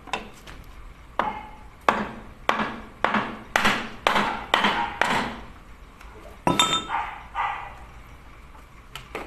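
A series of about seven sharp knocks, roughly one every two-thirds of a second, on a wooden block pressed against a piston to drive it into a cylinder bore of a HOWO diesel engine block. About six and a half seconds in comes a louder metallic clink that rings briefly, then a softer knock.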